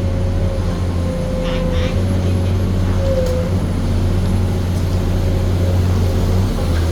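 Komatsu PC210 excavator running steadily: a deep engine hum under a high, steady hydraulic whine that wavers in pitch briefly about two to three seconds in.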